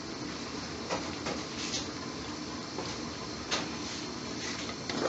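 Pan of rice and water boiling on a gas hob: a steady hiss of bubbling with a few faint pops.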